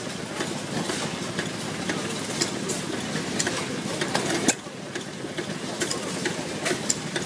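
Small antique hit-and-miss engine and its water-pumping machinery running, a steady mechanical rattle with irregular clicks and ticks. One sharp knock about four and a half seconds in, after which the sound briefly drops quieter.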